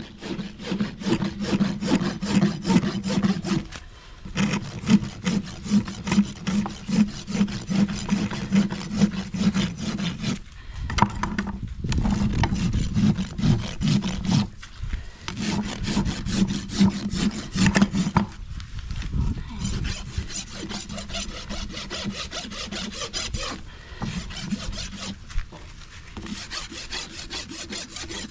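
Farrier's rasp filing a horse's hoof: a long run of quick, rough scraping strokes, broken by short pauses every few seconds.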